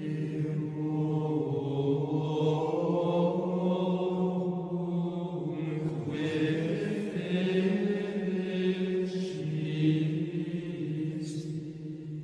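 Slow sacred chant sung by a male voice or voices in a low register, with long held notes and words drawn out.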